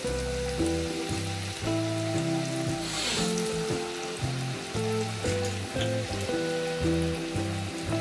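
Slices of ripe plantain sizzling as they fry in hot oil in a pan, turned with a fork, under background music with a melody that changes note every half second or so.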